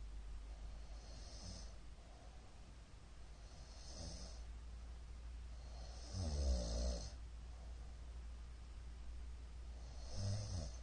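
A middle-aged man snoring in his sleep: slow breaths every few seconds, with a loud pitched snore about six seconds in and another near the end, over a steady low hum.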